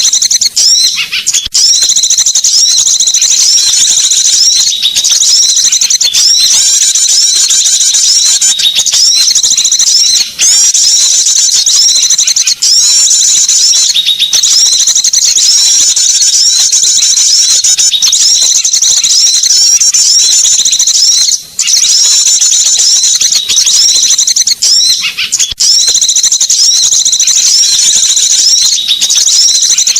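Loud, dense chirping and twittering of many small songbirds, a bird-lure call recording. The calls overlap without a break, and the pattern repeats every few seconds.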